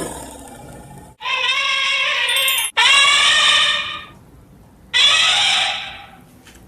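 Three long, pitched, elephant-like calls meant as the voice of a mammoth, the first two back to back and the third after a short pause.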